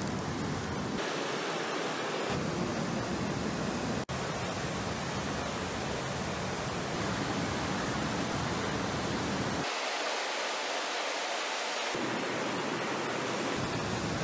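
Steady rush of a fast-flowing river over rocks, its tone changing abruptly several times, with a brief dropout about four seconds in.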